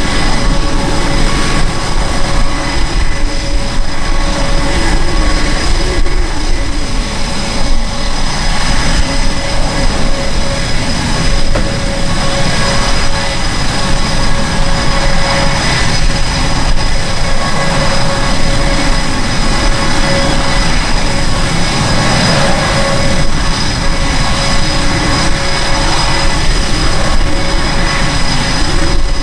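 EA-18G Growler's twin General Electric F414 turbofans at idle while the jet taxis: a loud, steady jet whine with several constant high-pitched tones over a rumble.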